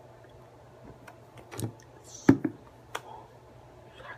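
Sharp, irregular clicks and taps from hands signing and striking each other, several strokes with the loudest a little past two seconds, over a faint steady hum.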